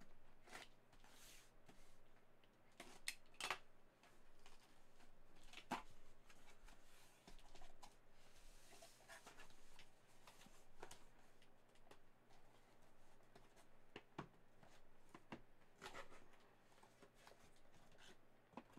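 Faint handling of a cardboard shipping case as it is opened and the sealed boxes inside are pulled out: scattered taps, scrapes and a short sliding rustle of cardboard about halfway through.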